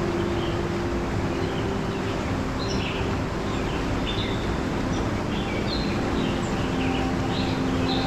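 Steady rush of a mountain stream cascading over rocks, with small birds chirping repeatedly from about the middle on.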